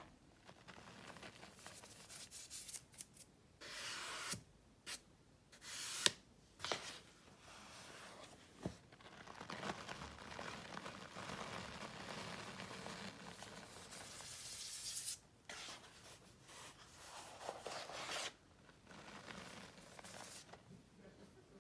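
Hands scooping, squeezing and sifting a tub of powdered scouring cleanser: a soft hiss of powder pouring and crunching that comes and goes, with a few sharp clicks and crackles in the first half.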